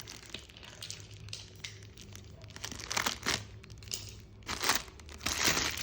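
Packaging being handled and crinkled in several short rustling bursts, the loudest about three seconds in and near the end, over a faint steady hum.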